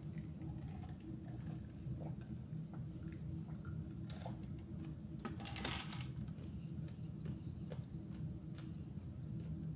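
Mouth sounds of someone drinking from a glass and eating: small scattered clicks and swallows over a steady low hum, with one brief louder noise about five and a half seconds in.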